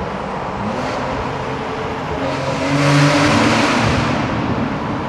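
Porsche 992 Carrera S Cabriolet's twin-turbo flat-six and sports exhaust running under way, heard with the roof down inside a road tunnel over a rush of wind and road noise. The sound grows louder about halfway through, then eases off.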